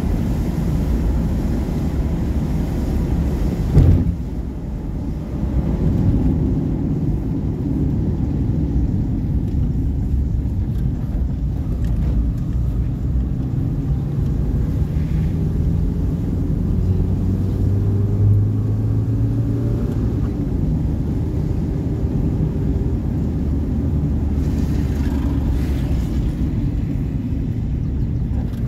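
Car driving on a wet road, heard from inside the cabin: a steady low rumble of engine and tyres, with the engine note rising gently in the middle. A single short thump comes about four seconds in.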